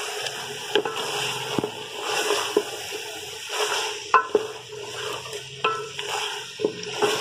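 A wooden spoon stirs and scrapes a thick spinach-and-potato curry in a metal pot, with irregular knocks of the spoon against the pot, about one a second. Under it the oily curry sizzles lightly on the heat.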